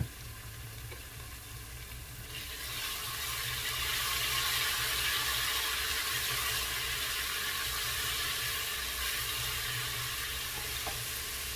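Ginger and garlic sizzling in olive oil in a stainless steel pot, stirred with a wooden spoon: the sautéing of the aromatics. The sizzle grows louder about two seconds in and then holds steady.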